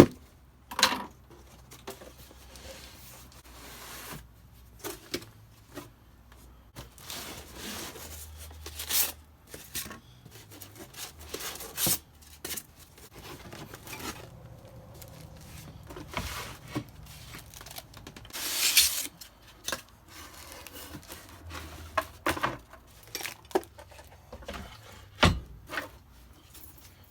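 Unboxing sounds: cardboard and packaging rubbing, rustling and tearing, with scattered knocks and clicks as parts are handled. One longer, louder tear or rustle comes about two-thirds of the way through.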